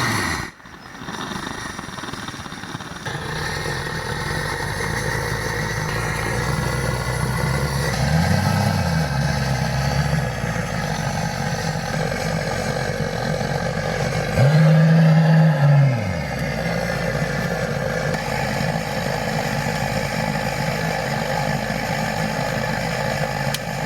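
An engine running steadily, its low note rising briefly and falling back twice, the second time louder.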